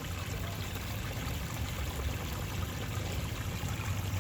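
Rushing water running steadily, an even wash of noise with a strong low rumble beneath it.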